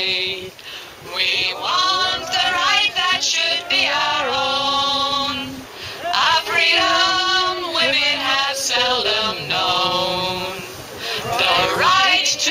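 A group of women singing a refrain together, in several phrases with long held notes.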